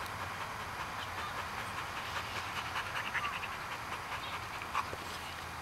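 Dog panting with its mouth open.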